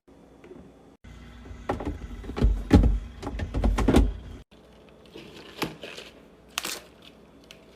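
Objects being handled and set down, likely containers or food items going into a refrigerator: a run of knocks and thuds for about two seconds, then lighter clicks and a brief rustle.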